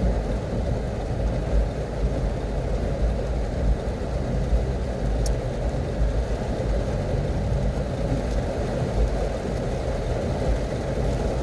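Heavy rain and strong wind beating on a stopped car, heard from inside the cabin as a steady low rumble.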